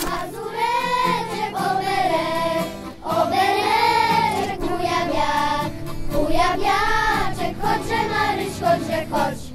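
Children's choir singing a melody in sustained phrases, accompanied by accordion and acoustic guitar.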